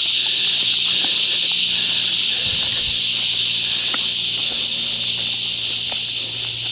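Cicadas calling in a steady, high-pitched, very noisy chorus.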